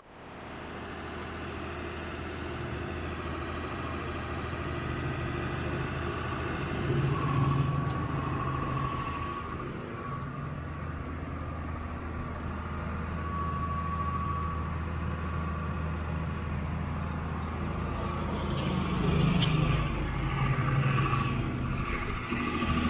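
A small motorcycle engine running steadily close by, with street traffic around it. The sound swells twice, and a motorcycle passes close near the end.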